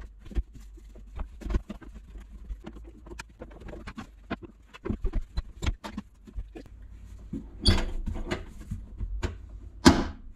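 Handling noises from fitting reupholstered seat cushions into a kei truck cab: a run of scattered clicks, knocks and rustles, with two louder thumps in the last few seconds.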